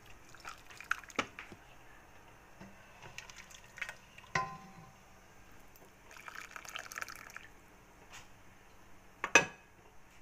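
Soup ladled with a wooden ladle into a ceramic bowl: drips and splashes of liquid, a stretch of pouring about six seconds in, and scattered light knocks, with a sharp knock near the end.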